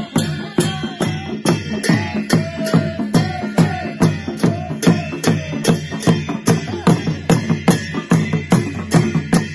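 Two-headed wooden barrel drums (dhol) beaten with sticks in a steady, fast rhythm of about three to four strokes a second. In the first few seconds men's voices chant over the beat.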